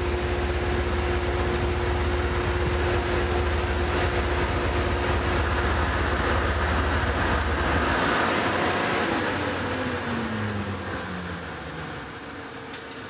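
Harley-Davidson CVO Road Glide ST's 121 cubic-inch V-twin running steadily under load on a Dynojet chassis dyno, with a steady whine over the engine. About eight seconds in the throttle is closed: the engine note drops away and the whine falls in pitch as the bike and dyno roller coast down, the whole sound fading.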